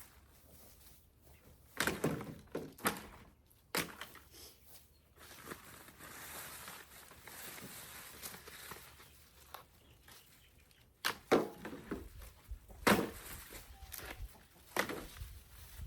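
Scattered knocks and thuds from handling dried loofah gourds, with a soft dry rustle between them. A cluster of knocks comes about two seconds in, and the loudest ones come about two-thirds of the way through.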